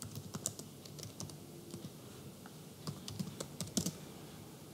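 Typing on a computer keyboard: a run of quick key clicks that stops about four seconds in.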